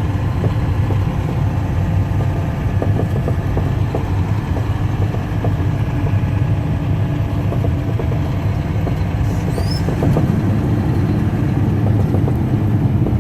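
Dump truck's diesel engine running with a steady low rumble.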